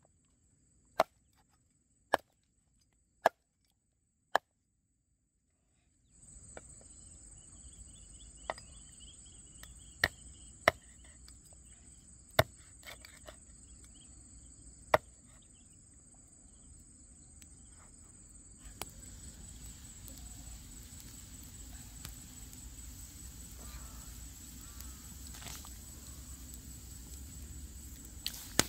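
Cleaver chopping a skinned snake into pieces on a wooden chopping board: four sharp chops about a second apart, then, after a cut, scattered chops over a steady high insect drone. In the last third a steady hiss comes up under the insects.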